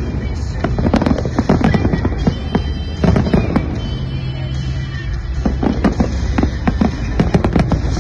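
Fireworks salute bursting: many sharp bangs and crackles in quick succession. They thin out for a couple of seconds in the middle, then come thick again.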